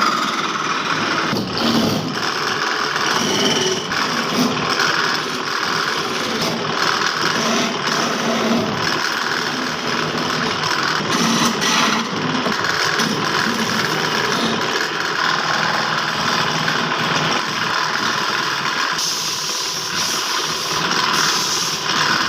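Power tool running steadily while working wood.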